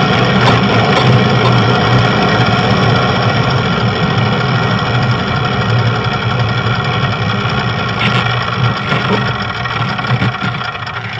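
Motor vehicle engine idling close by, a steady low running hum that eases off slightly near the end.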